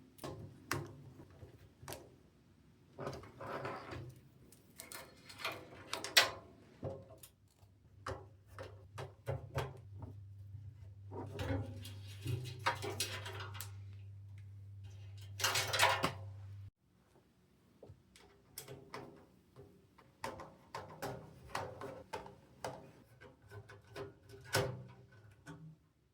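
Clicks, taps and knocks of PC case parts being handled and fitted, with some longer scraping handling noises, over a steady low hum that cuts off about two-thirds of the way through.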